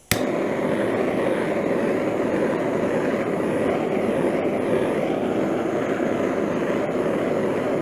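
Handheld butane kitchen torch clicking alight, then its flame hissing steadily as it is skimmed over wet acrylic paint.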